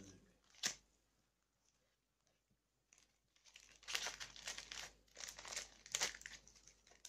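A small postal packet being torn open and its wrapping crinkled by hand: a single sharp click under a second in, a few seconds of near quiet, then a stretch of crinkling and rustling as the packet and the foam-wrapped item inside are handled.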